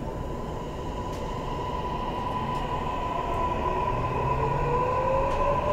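Toei Mita Line 6500 series train with Mitsubishi hybrid-SiC VVVF inverter control, heard from inside the car while it gets under way. A steady high tone sits over running noise that grows louder. From about three and a half seconds in, a second whine rises steadily in pitch as the train accelerates.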